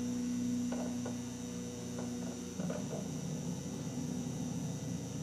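Steady electrical hum and static from an old videotape soundtrack, with a few faint clicks. About halfway through the clean hum gives way to a rougher, noisier low rumble.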